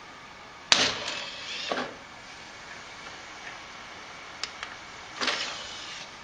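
DVD drive tray motor running twice: a sharp click and about a second of mechanical whirring, then a few seconds later a small click and another shorter run.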